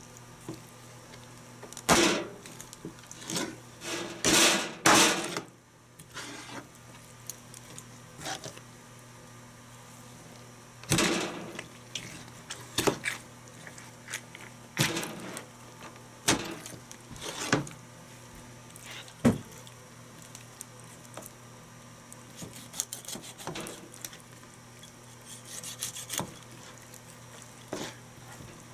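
Large kitchen knife chopping through a raw whole chicken, the blade knocking on a plastic cutting board in irregular thuds, several close together near the start, with quieter cutting and handling sounds between.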